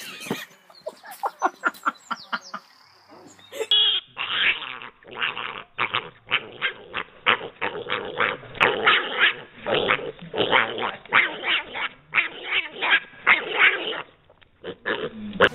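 Piglet squealing over and over in short, quick calls, starting about four seconds in.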